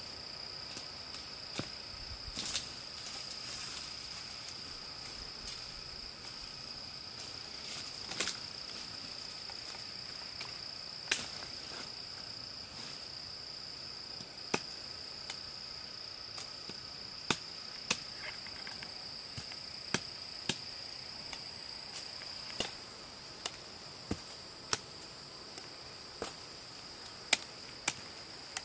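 Insects trilling steadily at a high pitch in tropical forest, with sharp knocks at irregular intervals that come more often in the second half.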